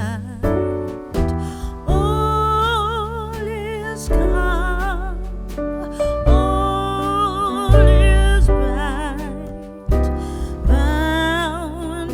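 Background music: a slow song with a singer's voice holding notes with vibrato over piano or keyboard chords and a deep bass.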